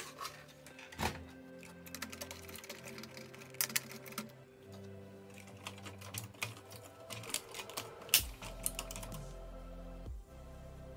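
Repeated short clicks and taps from the Sony stereo's front panel being handled and pressed into place, over steady background music. The clicks come in irregular clusters and stop about nine seconds in.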